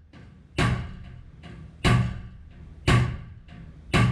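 Dent-repair blows on a Toyota Tundra's dented sheet-metal side panel: a heavy knock about once a second, four in all, with a lighter tap between each.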